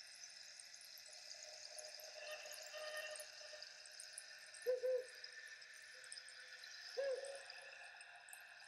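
Faint, steady ambient background sound with two short, low hoot-like calls about two seconds apart, the second near the end.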